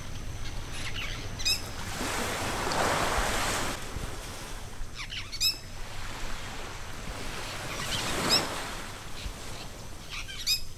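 Nature ambience of bird calls, short runs of chirps heard about four times, over slow rushing swells like surf that rise and fall twice.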